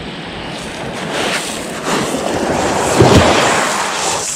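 Small waves washing onto a pebble shore, with wind buffeting the microphone; the sound swells to its loudest about three seconds in.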